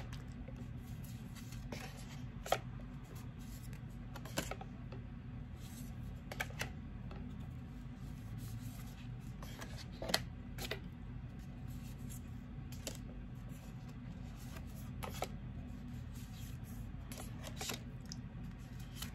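Oracle cards handled one at a time, with scattered soft clicks and taps as cards are moved on the deck, over a steady low hum.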